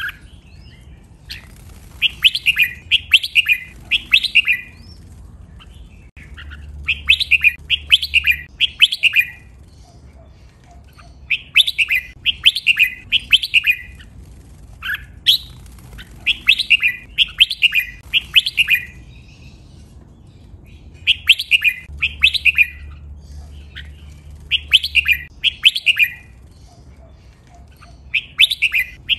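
Red-whiskered bulbul singing: short phrases of four or five quick, clear notes, one phrase every few seconds with brief pauses between.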